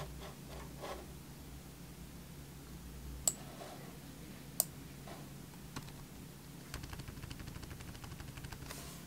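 Two sharp computer clicks a little over a second apart, then a quick, even run of keyboard key taps over the last couple of seconds, over a faint steady hum.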